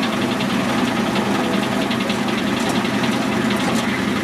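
Motorized Christmas tree shaker running steadily, vibrating a freshly cut tree to shake out loose needles.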